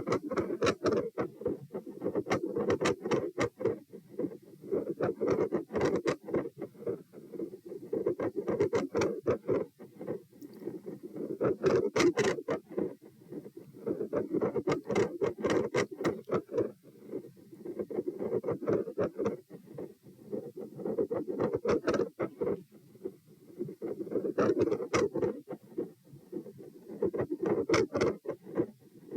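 Heart sounds through a stethoscope chest piece during an exercise stress test, with raised heart rate. A rushing sound swells and fades about every three seconds, and many scratchy clicks come from the chest piece rubbing.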